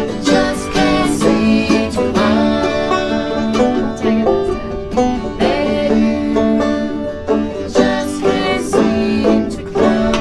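Acoustic bluegrass band playing: open-back banjo, acoustic guitar and mandolin picking a fast tune together.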